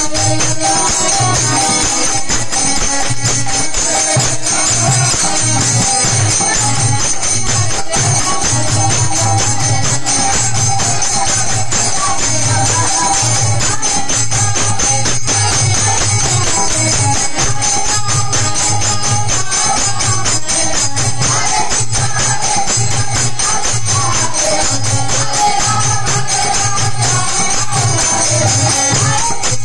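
Devotional kirtan: a group singing a chant to a steady beat on a drum, with jingling hand cymbals (kartals) ringing throughout and hand-clapping.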